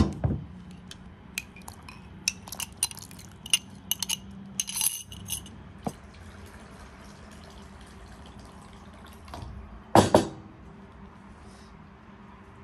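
Glass and kitchen utensils clinking and tapping: a run of light clinks over a few seconds. There is a thump at the start and a louder knock near the end.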